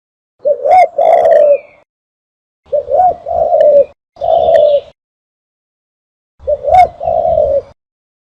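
Dove cooing: four phrases of low, rolling coos separated by silent gaps. It is a recorded dove call used as a hunting lure.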